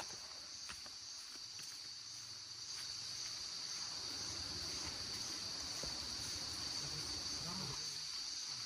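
Insects keeping up a steady, high-pitched drone that does not break, with faint low rumble and a few small ticks underneath.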